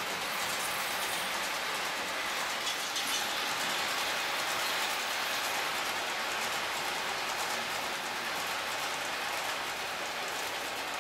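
H0-scale model freight train of tank wagons behind an electric locomotive, rolling along the track with a steady, even running noise from its small wheels on the rails.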